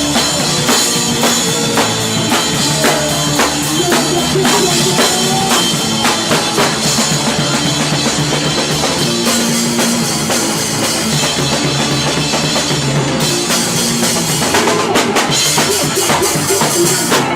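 Ska-punk band playing live and loud, with the drum kit's kick and snare driving a fast beat under the band.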